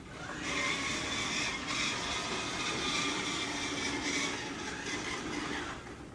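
A steady machine whir with a hiss, starting about half a second in and cutting off near the end.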